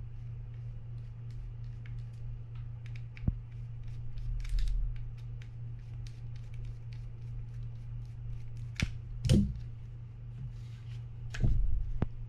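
Small scattered clicks and scrapes of a screwdriver working the side-cap screws on a Penn Spinfisher 5500SS spinning reel. Louder knocks come a few times, about a third of the way in and again near the end, as the reel and a loosened screw are handled.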